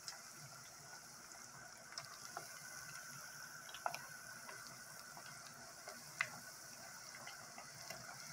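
Cornmeal-breaded fish chunks deep-frying in a pot of hot oil: a faint, steady sizzle with scattered pops and crackles.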